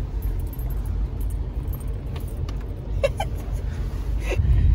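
Car cabin noise while driving: a steady low rumble from the engine and tyres, with light clicking rattles, the rumble growing louder near the end.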